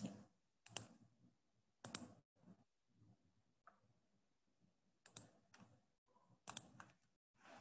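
Near silence broken by about half a dozen faint computer mouse clicks, some in quick pairs.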